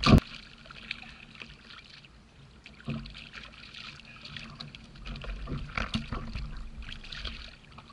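Sea water lapping and trickling against a plastic fishing kayak's hull, with scattered small clicks. A sharp knock right at the start is the loudest sound, and soft thumps follow about three and six seconds in.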